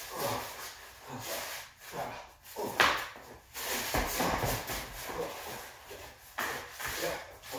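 Scuffling of a staged fistfight: feet in slide sandals shuffling and slapping on a concrete floor, with a sharp smack about three seconds in and a heavier thud a second later as one fighter falls to the floor.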